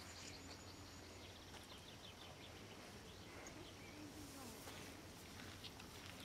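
Faint outdoor ambience: small birds chirping in short, high calls over a low, steady hum.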